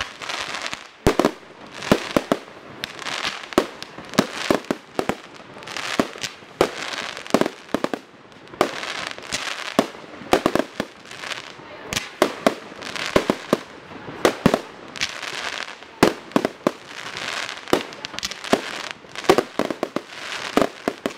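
Aerial shells of a professional fireworks display bursting: an irregular, rapid series of sharp bangs, often several a second in clusters, with a continuous noisy wash between them.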